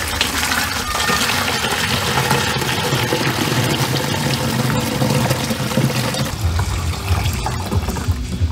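Liquid fertilizer mixed with iron pouring steadily from a plastic bucket into a plastic backpack sprayer tank, splashing into the tank. The stream thins near the end.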